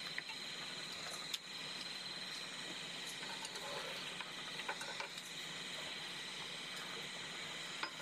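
Steady chorus of night insects trilling, with a few light clicks of chopsticks against bowls and plates.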